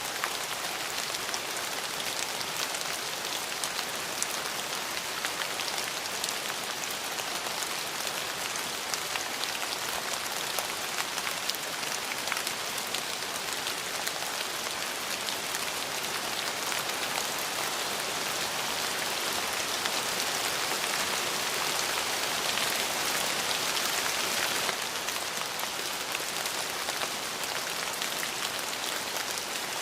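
Steady rain falling, an even hiss peppered with individual drop ticks, swelling a little heavier for several seconds past the middle.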